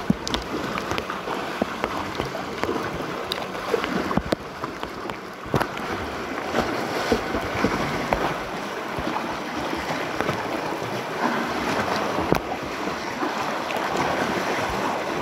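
Choppy lake water splashing and lapping around a sea kayak as it is paddled, with wind buffeting the microphone and a few sharp knocks.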